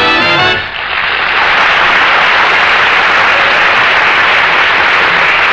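A swing band's brass finishes its phrase about half a second in, then a studio audience applauds steadily.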